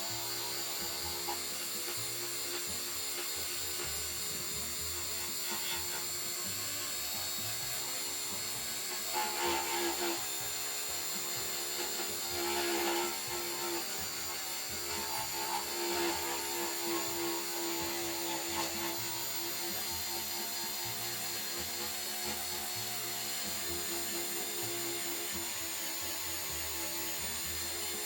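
Electric drum sander with a diamond-encrusted drum running steadily with a high whine as it strips paint from a steel truck bed panel, swelling louder briefly a few times in the middle as it bites in.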